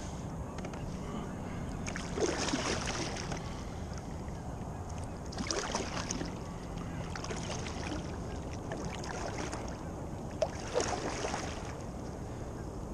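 Kayak paddle blades dipping and pulling through river water: three splashy paddle strokes a few seconds apart, over a steady low rumble.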